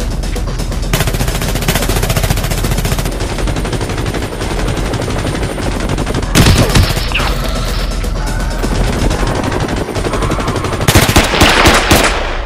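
Rapid, sustained machine-gun fire, as sound effects in an action film's mix, over background music. The fire gets louder about six seconds in and again in a dense volley near the end.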